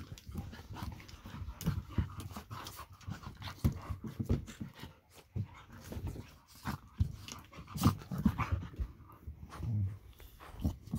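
A puppy and a larger adult dog play-fighting at close range, the puppy mouthing the older dog's face: panting and short grunts with many scattered clicks and knocks.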